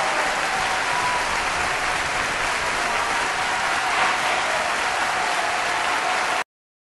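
Applause, many hands clapping steadily, which cuts off suddenly about six and a half seconds in.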